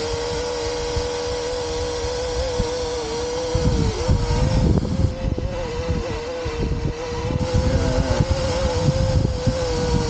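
Parrot Anafi quadcopter hovering, its propellers giving a steady high hum. From about three and a half seconds in, gusts of wind rumble on the microphone underneath it.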